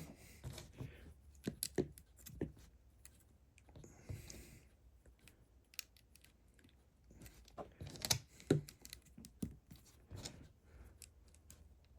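Small plastic Lego pieces clicking and clattering as they are picked out and pressed together, irregular light clicks with a short rustle about four seconds in.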